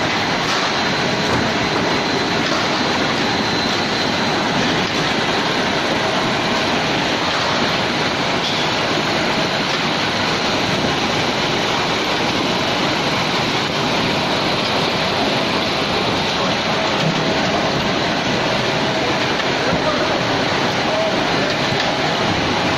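Steady, loud mechanical noise of a running poultry processing line, an unbroken rushing din with a faint steady whine through it.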